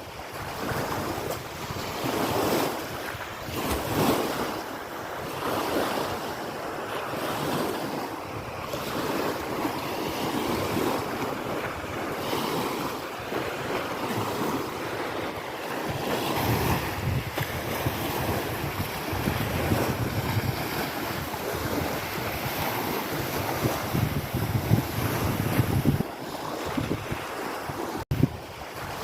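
Small lake waves washing against the shore, swelling every couple of seconds, with wind blowing across the microphone.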